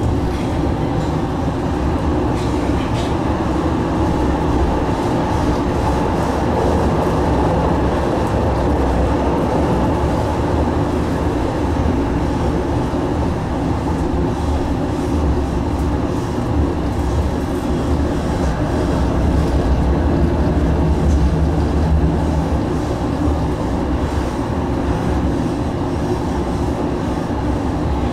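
Stadler Citylink tram-train in motion, heard from inside the passenger car: a continuous rumble of wheels on the rails with a few steady tones over it. It grows slightly louder about twenty seconds in.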